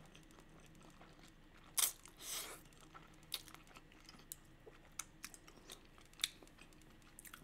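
Close-miked eating of spicy instant noodles: chewing with small wet mouth clicks. About two seconds in, a sharp click is followed by a short slurp.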